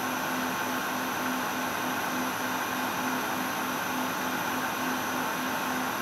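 Industrial machine running steadily: an even mechanical hiss and hum with a low tone that pulses several times a second.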